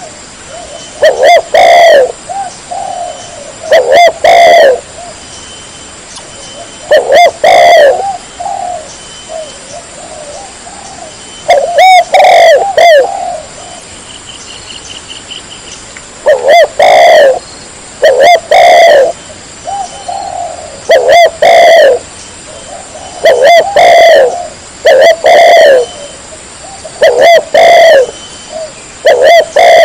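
Spotted dove cooing: loud, low coo phrases of a few notes each, repeated every two to three seconds with a couple of longer pauses.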